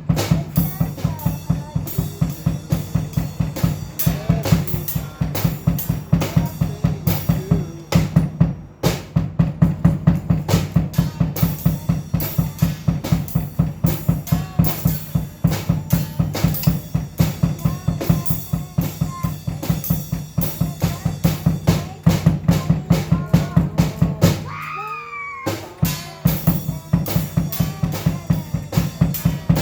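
Music driven by a drum kit playing a fast, steady beat with bass drum and snare. It drops out briefly about eight seconds in and again for about a second near the end.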